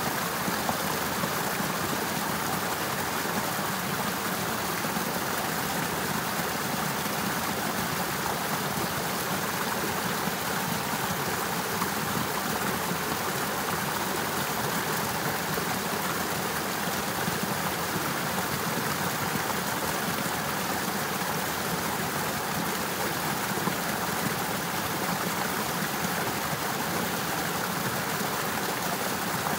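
Partly frozen river running steadily: an even, unbroken rush of flowing water.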